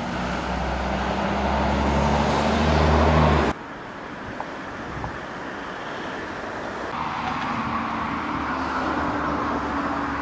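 A vehicle engine running steadily with a low hum, growing louder until it cuts off suddenly about three and a half seconds in. A quieter engine and traffic sound follows and swells again toward the end.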